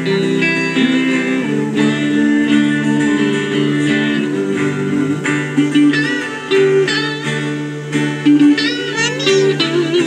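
Live band music without singing: a guitar plays steady chords under a melody from saxophone and guitar. After about six seconds a higher melody line bends and wavers in pitch.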